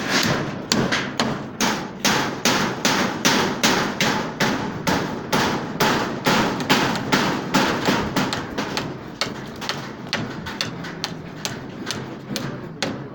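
Hammer blows in a steady rhythm, about two to three a second, becoming lighter over the last few seconds.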